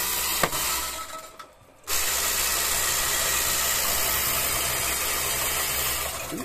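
Bank coin-counting machine running while it counts a batch of coins: a steady mechanical whir and hiss. A sharp click comes about half a second in, and there is a brief near-silent gap at about a second and a half.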